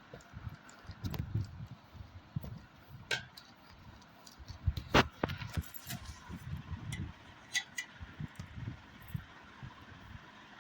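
Irregular knocks, taps and clinks of objects being handled, with a sharp click about five seconds in.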